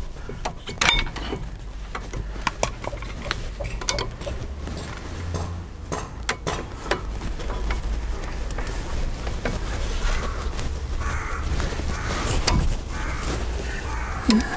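A screwdriver and a steel spring clip scraping and clicking against a car's front brake caliper as the clip is levered back into its holes. It is a string of sharp, irregular metal clicks and scrapes.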